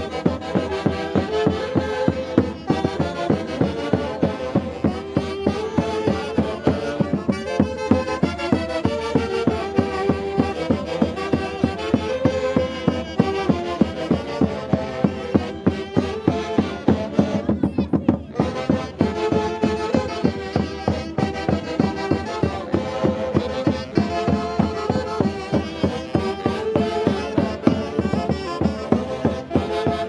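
Festival brass band of saxophones and bass drums playing a Peruvian Santiago dance tune, the melody carried by the saxophones over a steady drumbeat.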